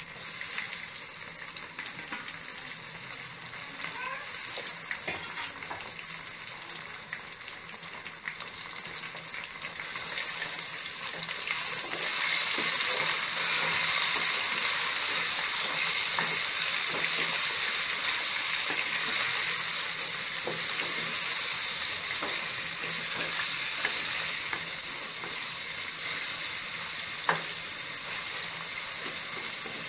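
Food frying in hot oil in a pan, a steady sizzle with scattered clicks and scrapes of stirring. The sizzle turns suddenly louder about twelve seconds in.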